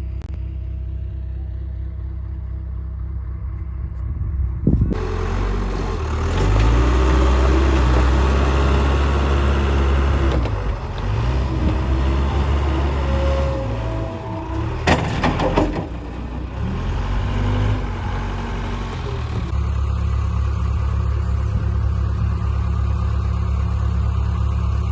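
A vehicle engine running, louder and with its speed rising and falling several times through the middle, with a few sharp knocks. It settles back to a steady hum near the end.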